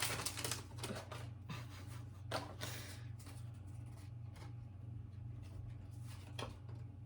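Pokémon trading cards being handled and slid against one another: a few soft, brief rustles and scrapes, over a steady low hum.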